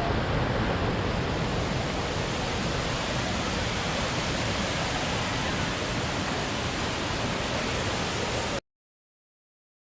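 Waterfall: water falling and rushing in a steady, even wash of noise that cuts off suddenly near the end.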